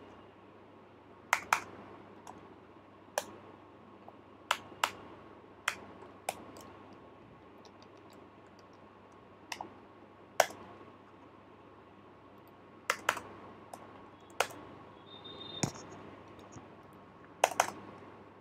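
Sparse, irregular key presses on a computer keyboard, some in quick pairs, as code is typed and edited.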